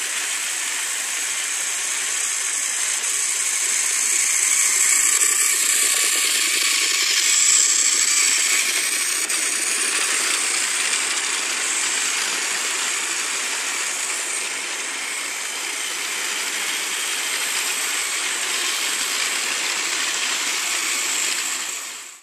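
Battery-powered TrackMaster Gordon toy engine running along plastic track with a long rake of plastic coaches, a steady whirring and rattling of motor and wheels that grows a little louder for a few seconds and fades out near the end.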